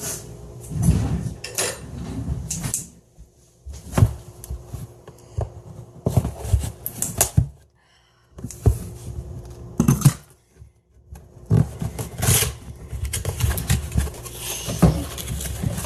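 Irregular knocks, clicks and rustling of things being handled, as of someone rummaging through drawers or cupboards, with brief quiet gaps between.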